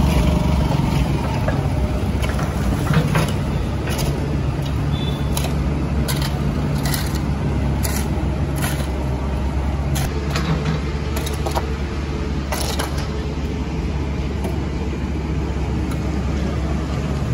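A vehicle engine running steadily with a low rumble. Irregular sharp scrapes and knocks come over it from shovels working the garbage pile, fading out after the middle.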